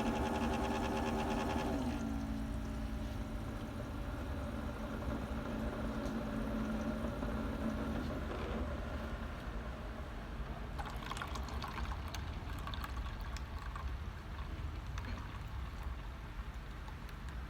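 Keurig single-serve coffee maker brewing a cup. Its pump hums steadily for the first two seconds, then settles to a lower, quieter tone while coffee pours into the cup. From about ten seconds in there are irregular gurgles and sputters.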